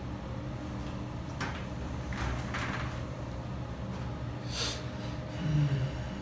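Steady room hum with a few faint handling noises as a whiteboard marker is passed from hand to hand, and a short sharp hiss-like sound a little after the middle.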